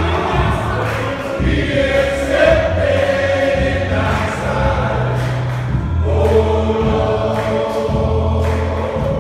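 Men's choir singing gospel music, with low notes held and changing about every second underneath.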